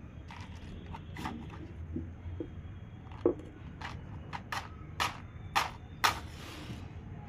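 A safety match struck again and again on the side of a matchbox: about five sharp scrapes in the second half. The last, about six seconds in, runs on into a short hiss as the match catches.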